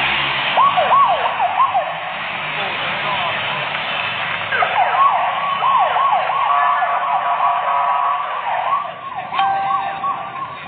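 Sirens sweeping up and down in quick repeated wails, a short burst about half a second in and then several overlapping from about four seconds in, over a steady rushing background noise; they come from the flashing-light escort vehicles leading the runners.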